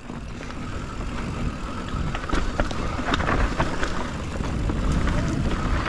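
Mountain bike riding down a dirt trail: wind buffeting the camera microphone over the rumble of tyres on dirt, getting louder as the bike picks up speed. Clattering knocks from the bike over rough ground come about two to three and a half seconds in.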